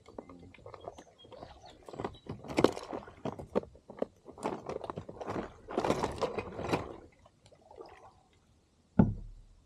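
Water splashing and sloshing around a kayak in irregular bursts, with knocks against the hull, then a single loud thump about nine seconds in.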